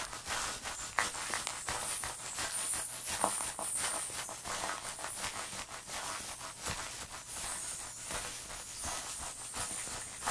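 A person's footsteps and scuffs on cave rock, irregular clicks and rustles over a faint hiss.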